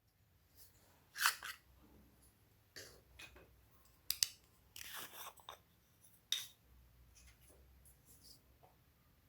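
Slime being worked by hand, giving a string of irregular sticky squelches, clicks and small pops at uneven intervals.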